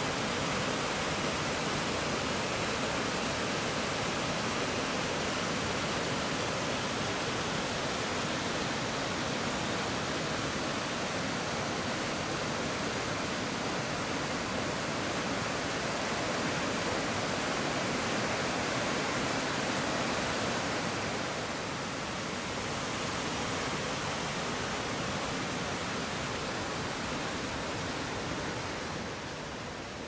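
Water rushing over cascades on a small mountain river: a steady, even rush of falling and tumbling water, easing slightly about two-thirds of the way through.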